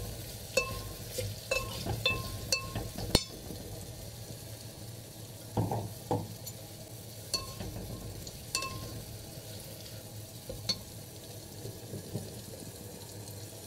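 Ghee sizzling with mustard seeds, cumin and bay leaf in a terracotta pot while a steel spoon stirs it. The spoon clinks against the pot with short ringing clicks, several in the first three seconds and a few more later, with a couple of duller knocks in between.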